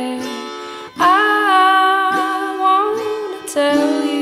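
Background music: plucked acoustic guitar under a wordless vocal line, with a long held note starting about a second in.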